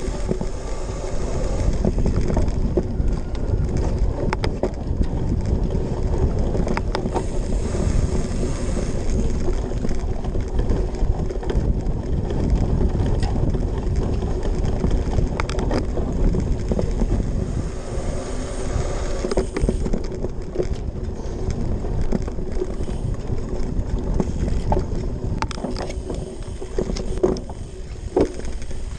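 A cyclocross bike ridden hard over grass: the tyres rumble on rough ground and the drivetrain and frame rattle and click, under wind noise on a microphone mounted on the bike. A few sharper knocks come near the end, as the rider slows for the barriers.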